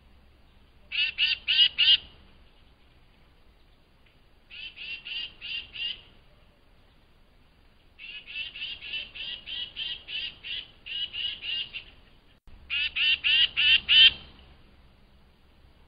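Tufted titmouse calling in bursts of rapid repeated notes, about four to a dozen notes at a time, with pauses of a second or two between bursts. The longest run comes about halfway through, and the loudest burst comes near the end.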